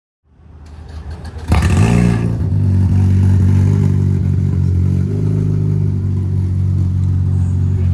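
Off-road race vehicle engine revved once about a second and a half in, then idling steadily.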